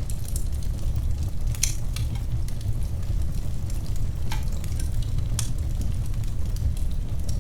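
Wood fire burning with a steady low rumble and hiss, and irregular sharp crackles and pops, the loudest about one and a half, four and a half and five and a half seconds in.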